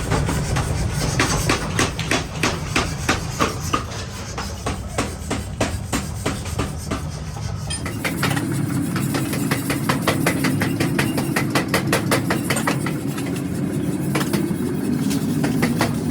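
Repeated hammer blows on steel in a forging shop, about two to three strikes a second, over a steady low machine hum. About halfway through they give way to a steady machine running with faint fast ticking.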